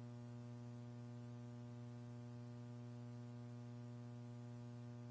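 Steady electrical mains hum with a buzzing ladder of overtones and faint hiss on the commentary audio line, unchanging throughout.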